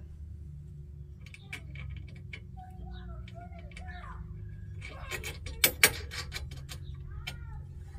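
Small metal clicks and clinks of bolts, nuts and washers being handled and started on the steering box brace of a Jeep Cherokee XJ, with two sharper metallic knocks a little past halfway, over a steady low hum.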